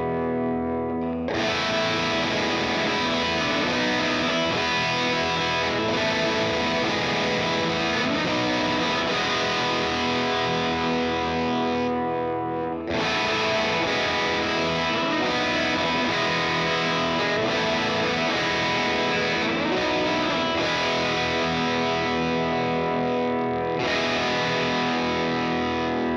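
Electric guitar played through a NUX Drive Core overdrive pedal, with distorted tone. The sound turns brighter and fuller about a second in, goes duller briefly around twelve seconds, brightens again, and dulls once more near the end.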